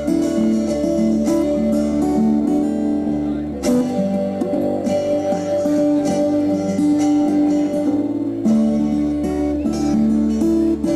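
Live instrumental acoustic guitar music: several guitars strumming and picking chords and melody together.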